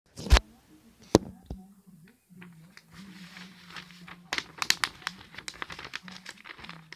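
Close handling noises: a sharp knock near the start and another about a second in, then a run of quick clicks and crinkly rustles, over a faint, wavering low voice.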